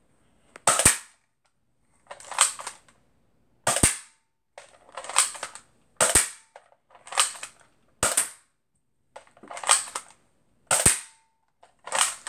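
Nerf Outbreaker Bow dart blaster being worked and fired over and over: about ten short, sharp bursts a second or so apart, roughly every other one carrying a hard click.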